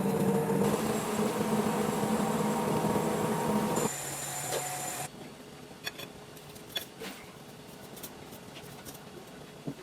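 A machine running with a steady hum, which drops away about four seconds in. A quieter background follows, with scattered light clicks.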